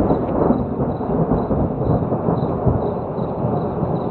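Thunder rumbling continuously, a deep rolling rumble with no break.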